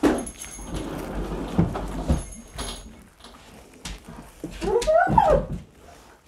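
A pet dog barks once right at the start, then gives a short wavering whine, rising and falling, about five seconds in. In between, a plastic bag and dry potting soil rustle as the old soil is picked off the cactus roots.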